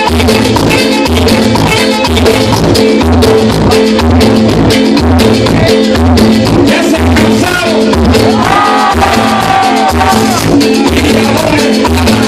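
A live cumbia band playing with congas, accordion and bass over a steady beat, with a male singer's voice.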